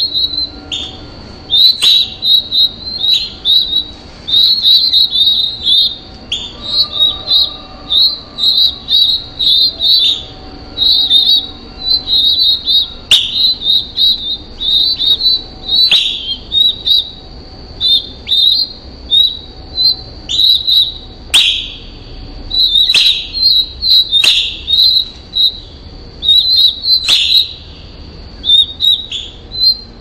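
Northern cardinal nestlings begging at the nest: rapid runs of short, high cheeps, repeated throughout, with sharp descending chip notes that come more often in the second half.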